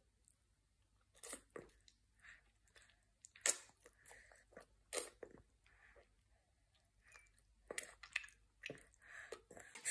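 A baby chewing food held in his fingers: faint, irregular mouth smacks and chewing clicks, with a few louder smacks along the way.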